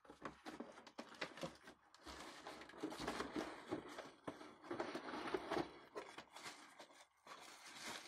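Plastic packaging bags crinkling and rustling, with cardboard inserts scraping and knocking as parts are lifted out of the box.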